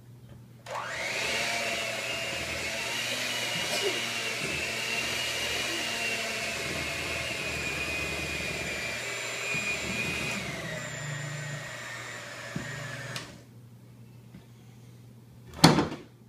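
Electric hand mixer running steadily, its beaters churning thick chocolate batter in a glass mixing bowl; its whine drops a little in pitch about ten seconds in, then the motor switches off. A single sharp knock follows a couple of seconds later.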